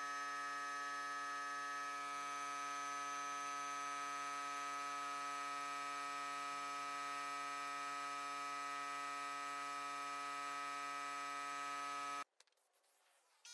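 A steady electrical hum of unchanging pitch, made of several tones together, that cuts off suddenly about twelve seconds in.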